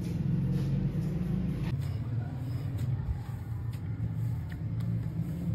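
A steady low hum, with a few faint soft taps and rubs as hands crumble and knead fresh chenna on a wooden tabletop.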